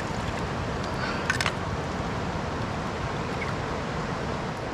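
Steady rush of a fast mountain river's water, with a single brief sharp sound about a second and a half in.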